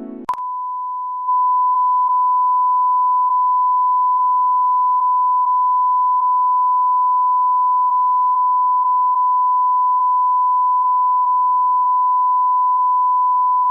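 A single steady electronic tone near 1 kHz, a pure beep-like sine tone. It comes in after a click, at first quieter, then jumps louder about a second in and holds unbroken.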